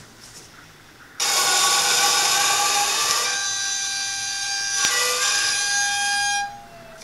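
High-pressure air hissing loudly with a steady whistle through a valve on a 2001 Bauer compressor's fill panel, starting suddenly about a second in and cutting off about five seconds later, with a sharp click partway through.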